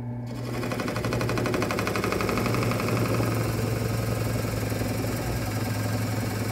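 WEN 8-inch benchtop drill press running at its slowed 740 rpm setting, with a large hole-cutting bit fed down into a wooden board. About a third of a second in, a rough, rapid chatter of the cutter biting into the wood starts over the steady motor hum.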